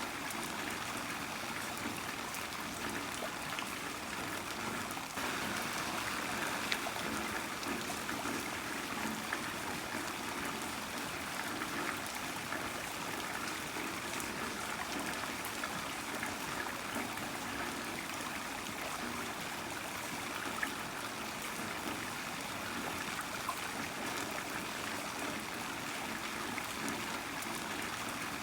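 Heavy rain falling steadily: a dense, even hiss of water with scattered sharper drop hits.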